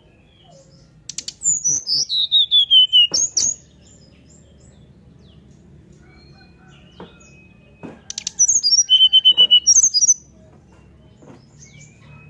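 Brown-chested jungle flycatcher singing: two phrases of rapid, clear whistled notes, about a second in and again about eight seconds in, the first sliding down in pitch note by note.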